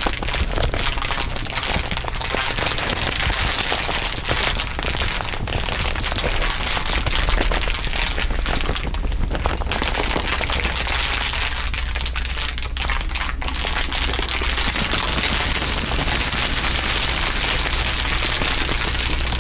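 Dense, continuous crinkling laid down in several overlapping layers, a thick crackle of many tiny snaps, over a steady low hum.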